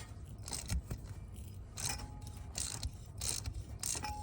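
Ratchet clicking in short, irregular bursts as a Helicoil thread tap is backed out of a stripped header bolt hole in an LS V8's cylinder head.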